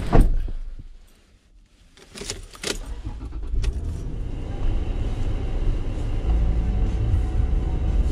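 A loud thump at the start, then keys rattle and a car engine is started about two and a half seconds in and idles steadily, its low hum growing louder about six seconds in.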